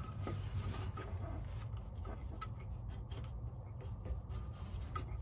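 Faint rubbing and small scattered clicks of hands working a stiff plastic wiring-harness connector off a Chevy Tahoe's ABS module (EBCM), over a low steady hum.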